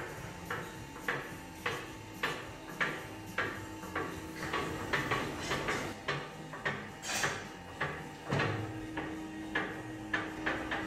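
VMI MAT 150 bowl lift hoisting a stainless steel spiral-mixer bowl up its column and beginning to tip it, with regular clicking about twice a second over a steady hum. A low thump comes about eight seconds in.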